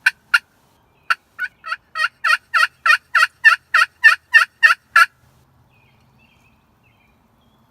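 Turkey yelping: a run of about a dozen short, evenly spaced yelps, roughly three a second, growing louder and then stopping about five seconds in.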